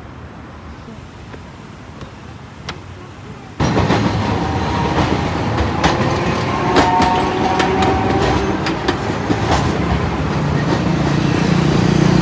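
A streetcar running along street-level rails: loud clattering and knocking of steel wheels over rail joints, with a thin squealing whine from the wheels in the middle. A motorbike engine drones in close near the end. Quiet street background comes first, and the tram noise cuts in suddenly about three and a half seconds in.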